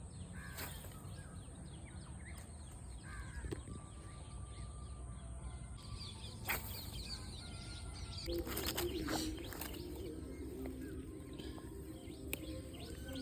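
Outdoor ambience of birds chirping and calling over a low steady rumble, with a few sharp clicks past the middle and a low hum starting about two thirds of the way through.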